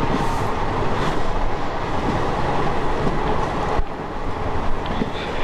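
Train running along the track, a steady rumble and rattle of wheels on the rails heard from aboard the moving train.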